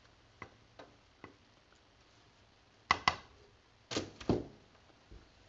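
Kitchen utensil knocking against cookware: three light clicks, then two pairs of sharper knocks about three and four seconds in.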